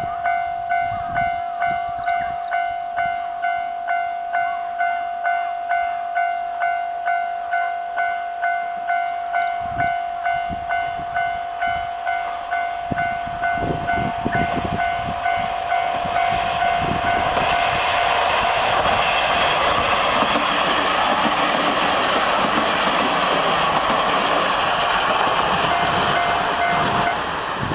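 Japanese level-crossing alarm ringing its steady pulsed electronic bell, about one and a half strikes a second. About halfway through, the Shinpei sightseeing diesel railcar approaches and runs over the crossing, its engine and wheels on the rails growing loud enough to swamp the bell, which stops just before the end.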